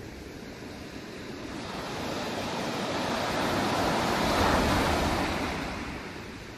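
A single rushing noise, like surf or wind, that swells up to a peak about four and a half seconds in and then fades away.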